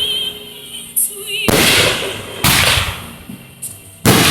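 Consumer fireworks going off: three sharp bangs about a second apart, plus a smaller pop, each trailing into crackle. Near the start there is a wavering high whistle like a whistling firework.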